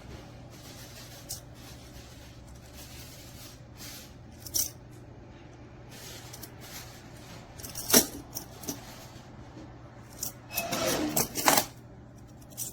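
Small plastic magnetic building blocks being handled and snapped together: scattered clicks, a sharp one about eight seconds in, then a quick clatter of blocks rattling against each other near the end.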